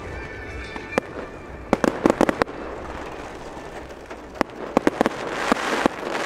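Aerial fireworks going off: sharp bangs of bursting shells, singly and in quick clusters of several, and near the end a swell of crackling hiss as a glittering shell bursts.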